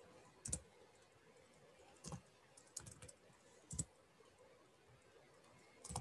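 Computer keyboard keys pressed one at a time: about seven separate clicks spread unevenly over several seconds.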